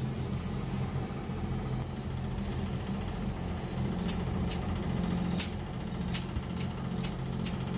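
Air-conditioner outdoor unit running on test, its compressor and fan giving a steady low hum; the unit appears to be working normally. In the second half a series of sharp clicks sounds about every half second.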